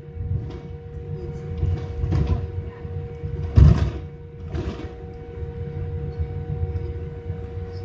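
Cabin noise of a Boeing 787 taxiing: a steady low rumble with a constant whine, and a few short, louder thuds about two, three and a half, and four and a half seconds in.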